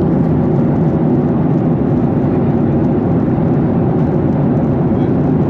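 Steady roar of a jet airliner's cabin noise in flight: engine and airflow noise heard from inside the cabin.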